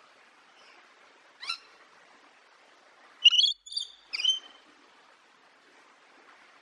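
Parrot calling: one short squawk, then a loud run of three or four sharp, high calls in the middle.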